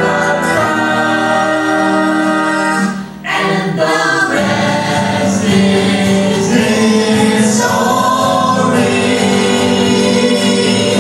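A song: several voices singing together over instrumental backing, with a brief drop about three seconds in.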